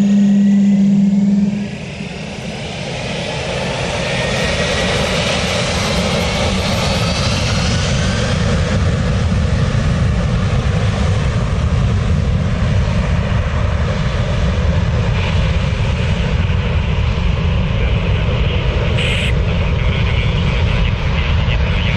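Jet airliner engines spooling up to takeoff thrust: a whine rising in pitch over the first several seconds, settling into a steady loud roar. A steady low tone stops abruptly under two seconds in.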